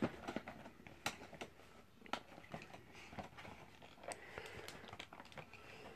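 Faint scattered clicks and rustles of a cardboard toy box being handled and pulled at, with irregular light taps every half second or so.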